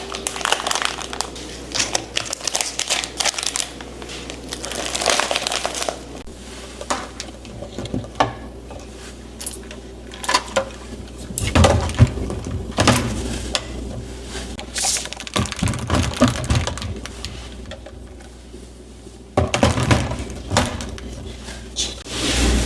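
Crinkling packaging and irregular light knocks and clicks of containers being handled while a pantry is sorted.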